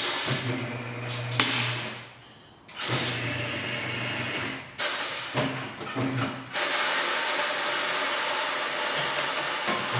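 Corghi Artiglio Master tire changer at work mounting a tire: its motor hums in several short runs stopping and starting, then a loud steady air hiss starts about six and a half seconds in and keeps on.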